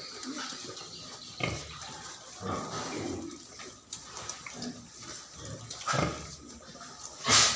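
Pigs grunting now and then, with one short, louder and sharper noise near the end.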